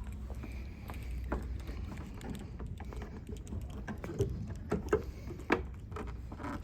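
Footsteps and light knocks and clicks, spaced irregularly and more frequent in the second half, over a low steady rumble.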